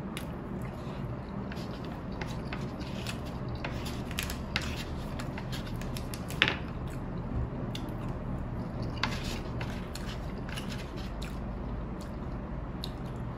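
Close-up eating sounds: wet chewing and mouth clicks from a mouthful of macaroni and cheese, with a wooden spoon scooping and scraping the paper tray. One sharper click stands out about six and a half seconds in.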